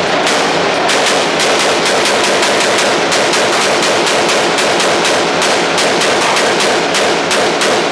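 Rapid gunfire from a short-barrelled AR-style rifle: a fast, unbroken string of shots at about four a second.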